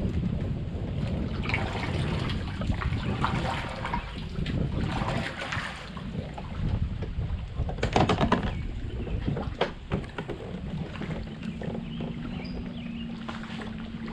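Water splashing and sloshing around a kayak, with scattered knocks of handling and wind rumbling on the microphone. From about eleven seconds in a steady low hum joins.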